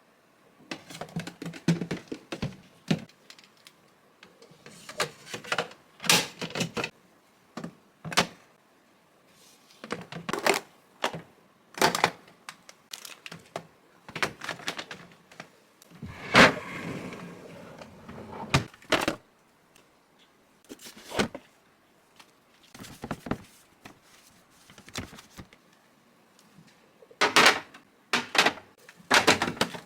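Household items being handled in a kitchen: an irregular run of clicks, knocks and thunks as containers and packages are picked up and set down, with a longer rustle of packaging about halfway through.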